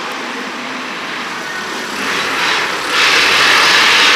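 Road vehicle passing on the street: a steady hiss of tyre and traffic noise that swells about three seconds in as it comes closest.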